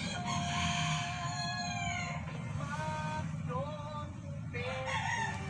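A rooster crowing: one long call lasting about two seconds at the start, then a few shorter calls, over a steady low hum.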